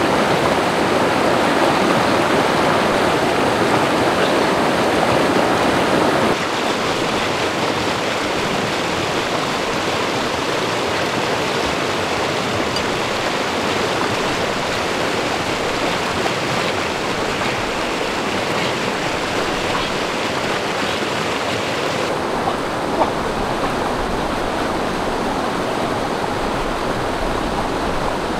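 Steady rush of river water tumbling over rocky rapids. The sound drops in level abruptly about six seconds in and turns duller later on, with one short knock near the end.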